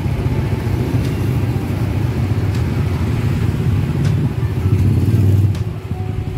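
Yamaha Mio Sporty scooter's single-cylinder four-stroke engine running, getting louder for about a second and a half near the end and then easing back toward idle. It runs on a freshly fitted wet battery and new wiring.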